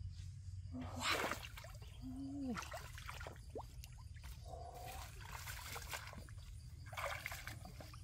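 Rustling, splashing movement through wet undergrowth in several short bursts, with a dove giving one low falling coo about two seconds in.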